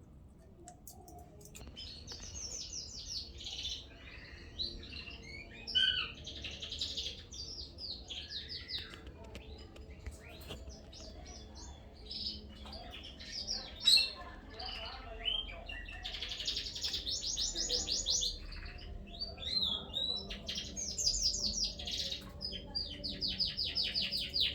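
Pet birds chattering and warbling: a run of high chirps and fast ticking trills with short pauses, with a few sharp clicks, growing busier in the second half.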